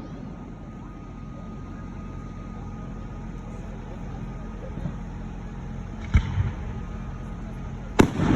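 Fireworks going off: a sharp bang about six seconds in, followed by a duller thump, then a louder bang near the end, over a steady low rumble.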